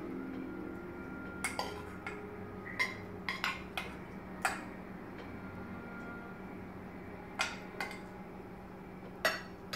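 A metal utensil clinking and scraping against the inside of a metal cooking pot while noodles are spooned out onto a plate: about a dozen short, sharp clinks at irregular intervals, most of them in the first half and a few more near the end.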